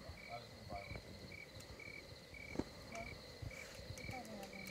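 Crickets chirping faintly: a short high chirp repeating evenly a little under twice a second, over a steady higher-pitched insect trill.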